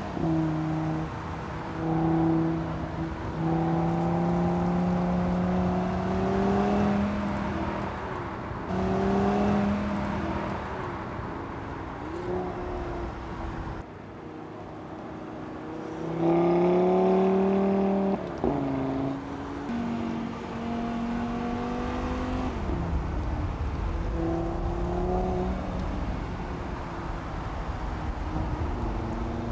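Audi TT RS Roadster's turbocharged 2.5-litre five-cylinder engine under hard acceleration. The revs climb steadily and fall back sharply several times as it shifts up through the gears, and the loudest pull comes just past halfway.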